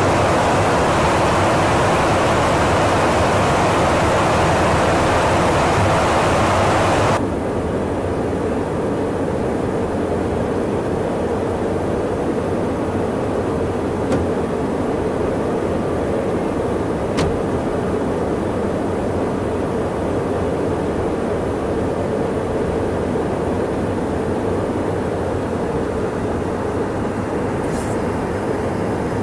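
Steady in-flight cabin noise aboard a KC-135 Stratotanker, an even rushing of engines and airflow. About seven seconds in it switches abruptly to a duller, slightly quieter rush, with a couple of faint clicks later on.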